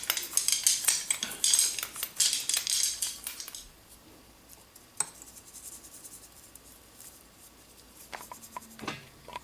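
Small metal parts and tools clinking and scraping against each other in a rapid, irregular run for about three and a half seconds. Then it goes quiet, with a single click about five seconds in and a few more clicks near the end.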